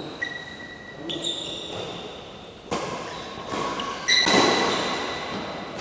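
Badminton rally: several sharp racket strikes on the shuttlecock, each ringing and echoing in a large hall, the loudest about four seconds in.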